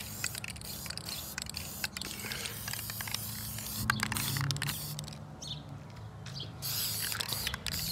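Aerosol spray-paint can hissing in short bursts onto a truck hood, with scattered clicks and rattles from the can being handled. A steady low hum runs underneath.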